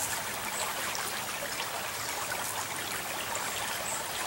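Shallow creek flowing over gravel: a steady, even rush of running water.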